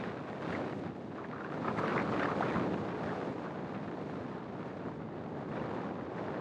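Wind rushing over the microphone of a camera mounted on the outside of a moving car, mixed with the car's road noise; it swells for a moment about two seconds in.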